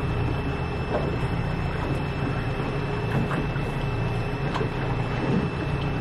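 Boat engine running steadily under way, an even drone with a thin high whine above it.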